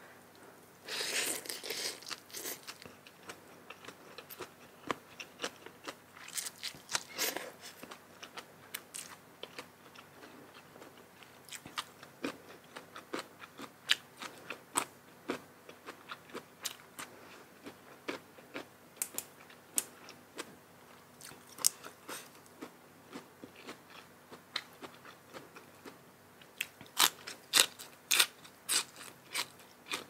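Close-miked eating: crisp crunching bites and chewing of spicy seafood papaya salad with raw vegetables. The crunches come irregularly, one or more a second, and are loudest in a run of bites near the end.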